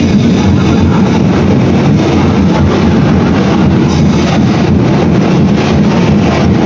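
Loud dance music with a fast, driving drumbeat, so loud that it overloads the recording.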